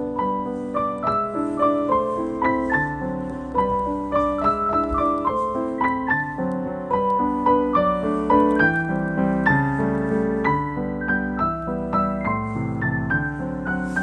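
Background piano music: a gentle melody of single notes and chords played steadily over a sustained low accompaniment.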